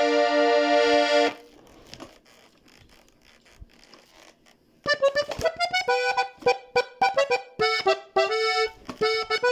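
Diatonic button accordion holding a pulsing chord that stops about a second in. After a gap of about three and a half seconds with only faint clicks, it comes back in with a quick run of notes and chords in norteño style.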